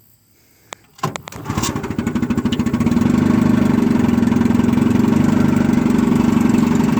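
1954 Evinrude Super Fastwin 15 hp two-cylinder two-stroke outboard starting about a second in, picking up speed, then running steadily with an even rapid beat. The motor has a fresh tune-up: rebuilt carburetor and corrected magneto coil ground wiring.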